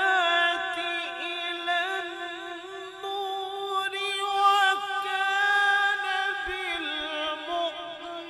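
A man's melodic Quran recitation (tilawat): one voice drawing out long, ornamented phrases, the pitch wavering and gliding on held notes.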